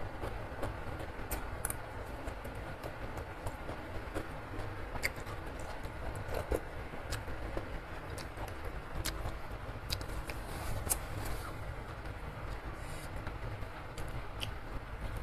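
Close-up eating sounds: instant noodles slurped and chewed, with short clicks of a metal spoon and fork against the bowl, over a steady low background rumble.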